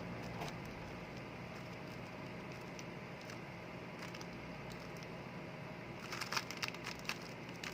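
Plastic Rubik's cube being turned: a few faint scattered clicks, then a quick run of turning clicks about six seconds in, over a steady room hum.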